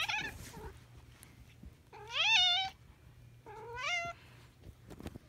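Domestic cat meowing: a short call right at the start, then two longer meows about two and three and a half seconds in, each rising then holding its pitch. The first of the longer meows is the loudest.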